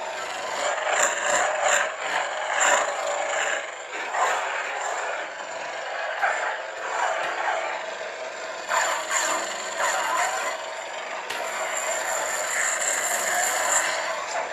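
Lightsaber sound font playing on a Proffie saber board: a steady electric hum with swing sounds and several sharp, crackling clash hits, bunched near the start and again around the middle.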